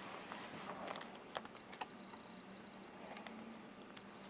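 A few faint, scattered light clicks and taps of small metal and plastic gun parts being handled at the bench: the AR-15 pistol grip, its screw and the selector detent spring.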